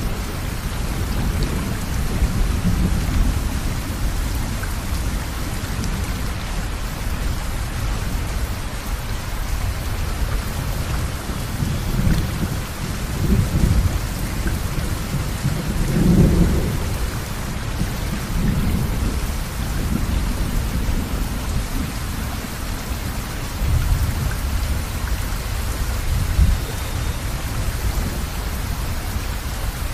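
Steady rain with thunder rumbling low underneath in several swells, the strongest about halfway through.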